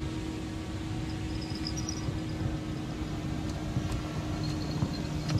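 A boat's motor running steadily, a low even hum under a noisy background.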